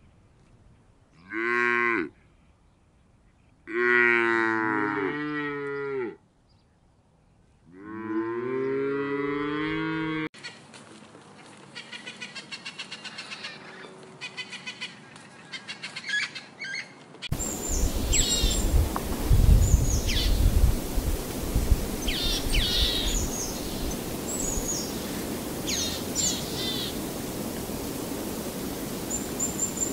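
Cows mooing three times, one short low call and then two longer ones. A bird's rapid, even chattering follows, and then high, sharp chirps over a steady rushing noise with low rumbles.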